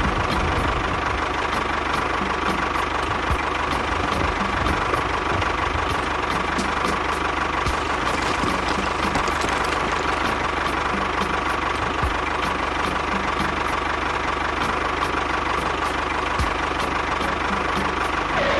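Small engine idling steadily, then stopping abruptly at the end.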